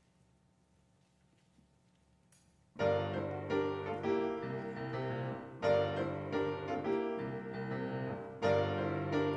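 Near silence, then about three seconds in a grand piano starts the introduction to a choir anthem, playing full chords with strong fresh attacks about every three seconds.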